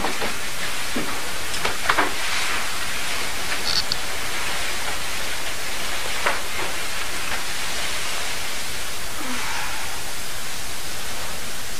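Steady hiss with no music or speech, broken by a few faint, brief soft clicks or rustles.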